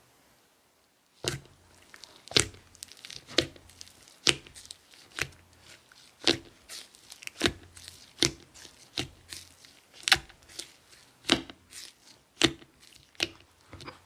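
Sherbet slime crackling and snapping as it is pressed and stretched by hand, a sharp crack about once a second with finer crackles in between.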